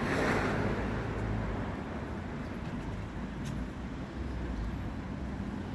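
Street traffic noise: a steady low rumble of vehicles, slightly louder in the first second.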